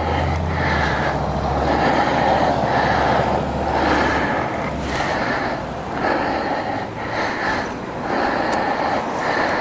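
Electric starter cranking the single-cylinder engine of a 2012 BMW G 650 GS Sertao, turning it over slowly in a steady chugging rhythm of about one to two pulses a second without the engine catching: the bike's recurring failure to start.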